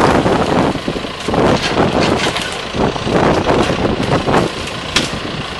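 Farm tractor's diesel engine running as its front loader shoves a pile of fallen tree branches along the road, with brushwood scraping and crackling.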